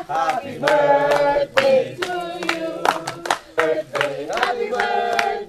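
A group of people singing together while clapping their hands in rhythm, about two claps a second.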